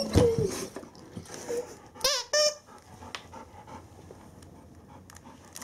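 Bernese mountain dog whining: short, high-pitched wavering whines, the clearest about two seconds in.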